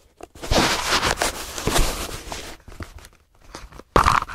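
Tissue paper rustling and crinkling as it is handled, with a sudden sharp knock near the end.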